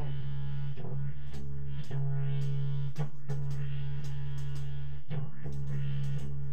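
Instrumental live jam music: a steady low bass drone under plucked guitar, with short breaks every second or two.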